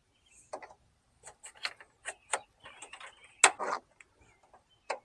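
Plastic headlight parts being handled and pushed back into place by hand: a string of irregular clicks and knocks, the loudest about three and a half seconds in.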